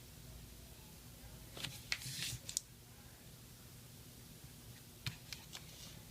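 Faint small clicks and a brief scrape of a smartphone and small parts being handled during reassembly, in two short clusters, one about a second and a half in and one about five seconds in, over a low steady hum.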